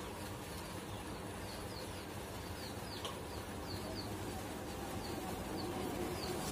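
Small birds chirping: runs of short, high, falling chirps, several a second, over a steady background din.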